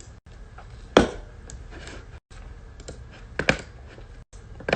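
A handful of sharp clicks and knocks, the loudest about a second in, with a quick double click about two-thirds of the way through. The sound cuts out completely for an instant three times.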